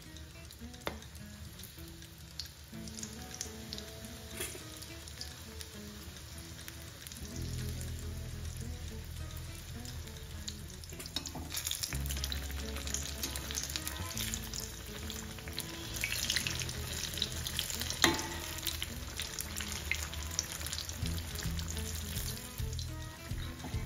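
Battered chillies deep-frying in hot oil in a cast-iron pan: a steady sizzle and crackle that grows louder after about 11 seconds as more pieces go in. A few sharp clicks of a slotted spoon against the pan come through, the sharpest about 18 seconds in.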